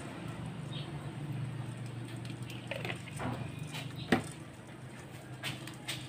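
Scattered light clicks and taps of kitchen handling over a steady low hum, with one sharper knock about four seconds in.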